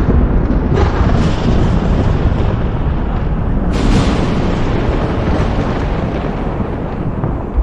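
Thunderstorm with continuous rolling thunder, deep and rumbling. There are two sharper, crackling peals, one about a second in and one near four seconds.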